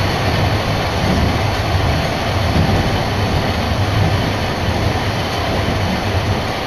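Sapporo city streetcar running along the line, heard from inside the car: a steady rumble of wheels and motor.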